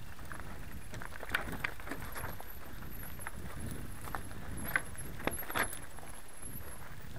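Mountain bike riding down rocky singletrack: a steady rumble of tyres and frame over loose stones, with scattered sharp clacks of chain, bike and rocks knocking, a few louder ones midway.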